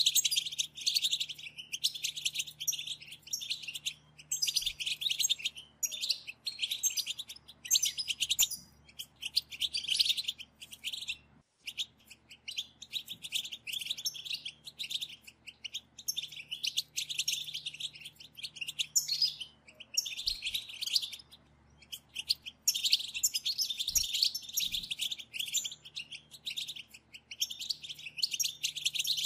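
A group of European goldfinches giving fast twittering chatter calls together, the calls keepers know as batbata. The chatter comes in bursts of a second or two with short pauses, and the sound cuts out briefly near the middle.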